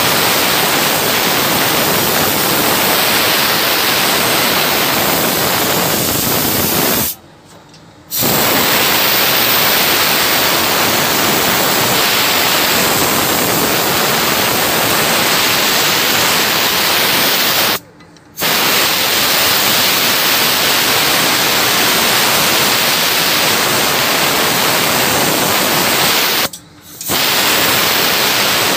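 Compressed-air blow gun hissing loudly and steadily into a ship's diesel cylinder head port, testing the freshly lapped intake and exhaust valves for leaks. The air cuts off briefly three times: for about a second some seven seconds in, briefly around eighteen seconds in, and again near the end.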